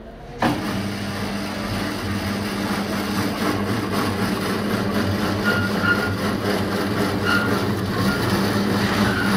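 Electric cabbage shredding machine with a spinning disc cutter running. Its motor hums steadily under the noise of cabbage being cut and thrown out. The sound comes in suddenly about half a second in.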